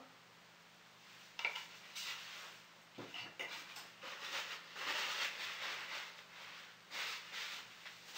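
Rabbit livers frying in butter in a frying pan, sizzling and spitting in uneven surges that start about a second and a half in.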